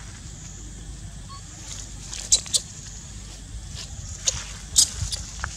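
Dry fallen leaves crackling in a few short sharp snaps, about four, as macaques move on the leaf litter, over a low steady rumble.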